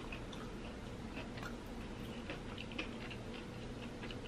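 Faint, scattered small clicks and crackles of a hot sauce bottle being shaken over a piece of crispy fried chicken held in the fingers, over a faint steady hum.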